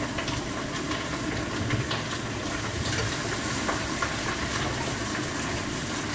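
Steady hiss of a kitchen tap running into an air fryer pot in the sink, mixed with a wok sizzling as vegetables are stir-fried. There are a few light knocks as the fryer basket is handled under the water.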